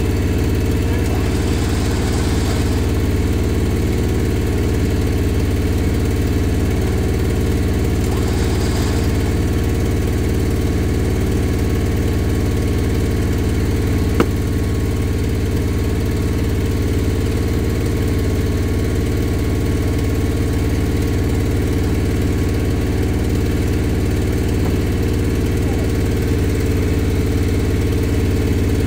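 A steady engine drone that holds one unchanging pitch throughout, with a single faint click about halfway through.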